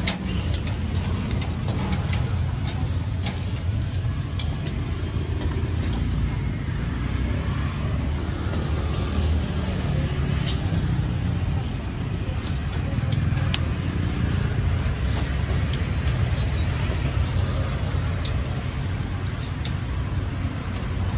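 Busy street ambience: a steady low traffic rumble, with scattered sharp clicks and knocks on top.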